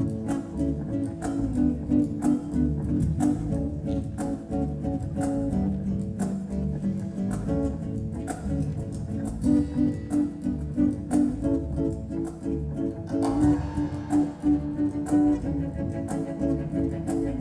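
Live acoustic band playing an instrumental passage: plucked guitar and bowed strings (cello, violin) over double bass, with percussion keeping a steady beat.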